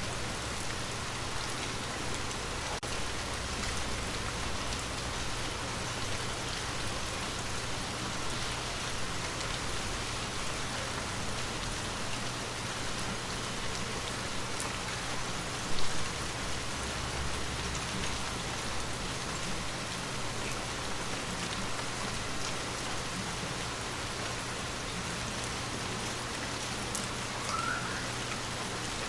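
Steady rain falling on a window, with one brief louder thump a little over halfway through.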